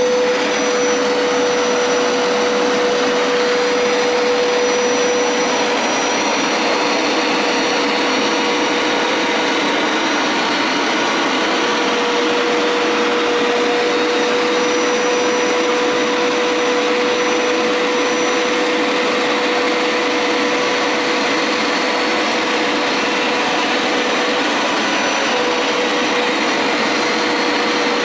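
Hoover Power Scrub Deluxe carpet cleaner running steadily on a rinsing pass over carpet: an even suction-motor rush with a constant whine.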